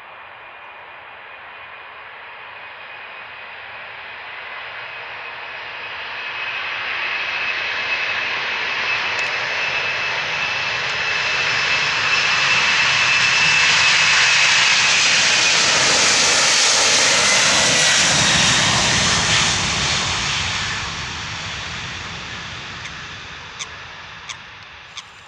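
Boeing 747-400 freighter's four turbofan engines at take-off power during the take-off roll. The sound grows steadily louder as the jet approaches and passes, and a high fan whine drops in pitch as it goes by, then fades as the aircraft lifts off. A few sharp clicks sound near the end.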